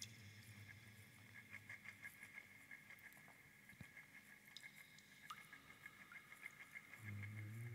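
Near silence: only a faint, high-pitched background sound pulsing quickly and evenly, with a few scattered soft ticks.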